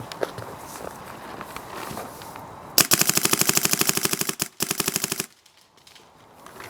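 DLX Luxe electropneumatic paintball marker firing a rapid string of shots, about a dozen a second, with a brief break partway through, then stopping abruptly.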